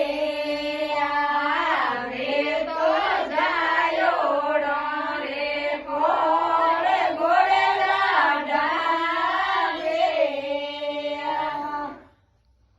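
Female singing of a Marwari devotional folk song (harjas, a rati jaga geet) in a sustained, chant-like melody. It cuts off abruptly about a second before the end.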